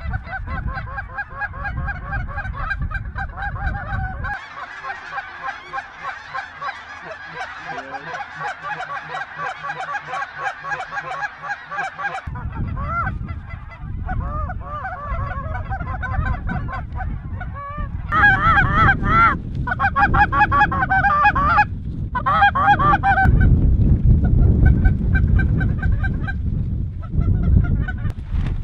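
A large flock of snow geese calling overhead: many overlapping honking calls run together into a continuous din. The calls get louder over the last ten seconds or so, and wind rumbles on the microphone most of the time.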